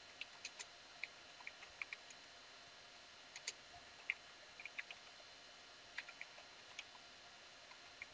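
Typing on a computer keyboard: faint, irregular keystroke clicks in short runs with brief pauses.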